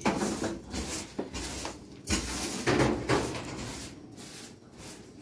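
Kitchen clatter: several knocks and bumps of things being handled, the loudest about two seconds in, easing off after about three and a half seconds.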